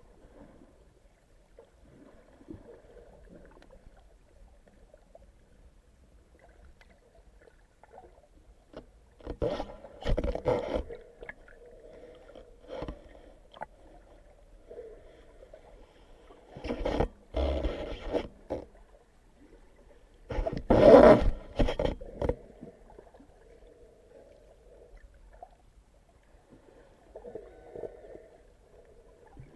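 Muffled underwater water noise picked up by a camera in a waterproof housing, broken by three loud bursts of sloshing water: one about ten seconds in, then two close together near seventeen and twenty-one seconds.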